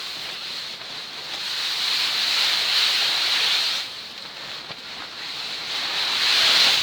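Wind gusting in blizzard weather: a rushing hiss that swells, drops away suddenly about four seconds in, then builds to a louder gust near the end.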